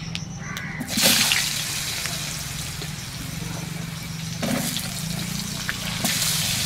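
Cut potatoes hitting hot oil and tempering spices in a kadai: a sudden sizzle breaks out about a second in and keeps going, swelling again about halfway and once more near the end.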